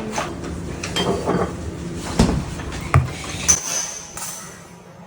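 Kitchen handling noises: several separate knocks and clinks of seasoning containers and dishes being picked up and set down on the counter. A low hum runs underneath and stops about three and a half seconds in.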